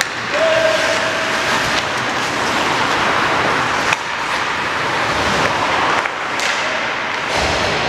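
Ice hockey play: a steady wash of skates scraping the ice and arena noise, with sharp knocks of stick and puck, one about four seconds in and another at six. A short held tone sounds about half a second in.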